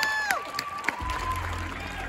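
Audience cheering and clapping, with long high 'woo' calls that die away early. About halfway through, a low, steady electronic drone from the indoor percussion ensemble's sound system comes in as its show begins.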